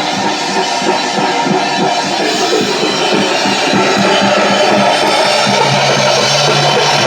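Rock jam session: a drum kit playing with electric guitar in a loud, dense mix, with held low notes coming in about five and a half seconds in.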